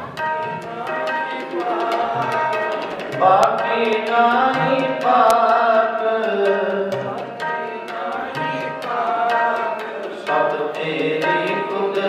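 Sikh devotional kirtan: a tabla pair keeps up a steady run of strokes under reedy harmonium chords and a sung hymn melody.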